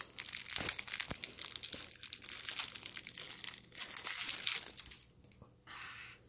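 Thin plastic snack-cake wrapper crinkling and crackling as it is peeled off a Cosmic Brownie by hand. The crinkling dies away about five seconds in.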